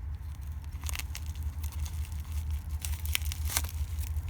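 Wrapping being pulled off a doll head by hand: intermittent rustling and crinkling with a few sharp crackles, over a steady low hum.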